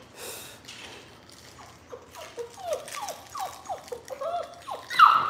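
Squeaky dog toy squeaking over and over as a puppy chews it, about four short squeaks a second, starting about two seconds in and getting louder near the end.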